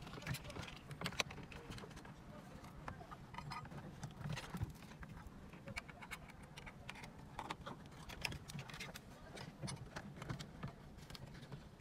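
Irregular small clicks, taps and rattles of plastic wiring-harness connectors and a car stereo's sheet-metal case being handled and pushed into place in a dashboard opening.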